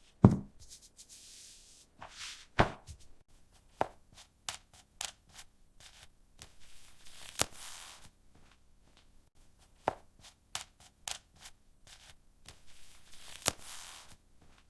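A series of irregular knocks and clacks of hard objects, the loudest one about a quarter second in and a few strong ones spaced a few seconds apart, with short hissy rustles in between.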